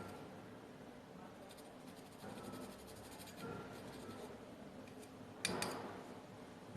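Light scraping and small handling ticks of tools working on a circuit board while an IC is desoldered, with one sharp click about five and a half seconds in.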